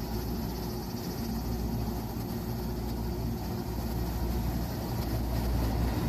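JR West 221 series electric train pulling away from a station platform: a steady low hum and rumble from its motors and wheels that grows louder toward the end as the train gathers speed.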